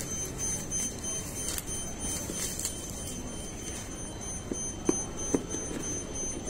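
Light handling of a cardboard tablet box: a few small taps and knocks, the clearest about five seconds in, over steady room noise with a constant high-pitched whine.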